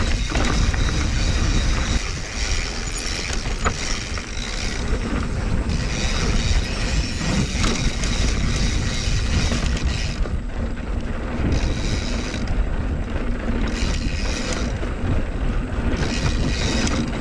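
Mountain bike being ridden over a dirt trail: wind rumbling on the camera microphone over tyre noise, with the bike rattling over bumps.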